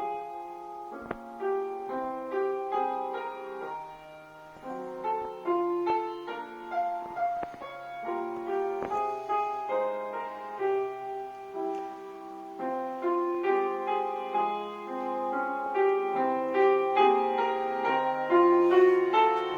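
Piano music in a classical style, playing steady rhythmic phrases as ballet class accompaniment.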